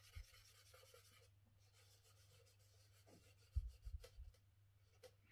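Faint scratch and rub of charcoal on paper in short shading strokes, dying away after about a second. A few soft low thumps come about three and a half to four seconds in.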